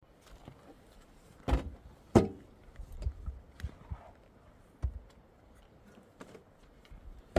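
A few irregular knocks and thumps, the loudest about two seconds in, as of wood and materials being handled during building work on a hut.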